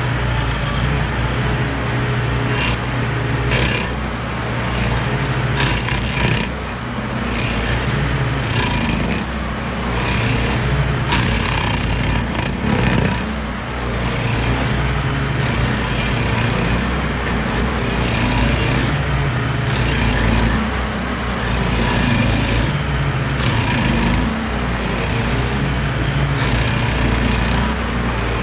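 Small petrol engine running steadily at high speed, with a rough, noisy edge over its hum that dips briefly a few times.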